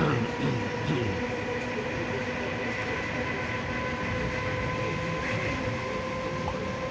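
ED4M electric commuter train running along the track: a steady rumble with a constant whine, and a few short falling tones in the first second.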